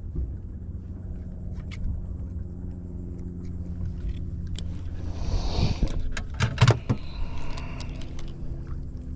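An engine runs steadily with a low hum. About five to seven seconds in, a burst of rustling noise comes over it, followed by a few sharp knocks.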